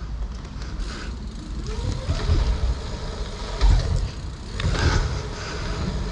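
Dirt jump bike riding over skatepark ramps: a low rumble of tyres rolling, swelling louder a few times.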